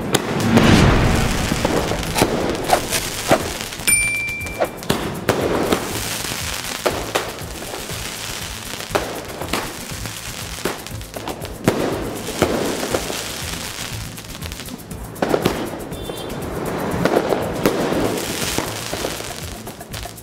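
Multi-shot crackling aerial shell cake firing: shells thump out of their tubes one after another and burst overhead into dense crackling, at irregular intervals.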